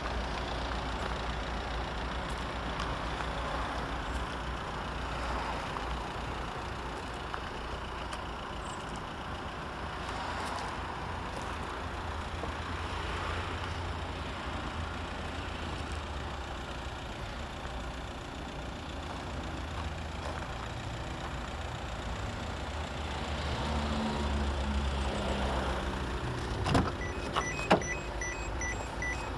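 Peugeot 206 engine idling steadily. Near the end the car's door opens with a few sharp clicks, and a fast repeating warning beep starts up.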